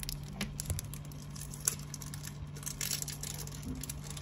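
Scattered small clicks and light rustling of objects being handled, over a steady low hum.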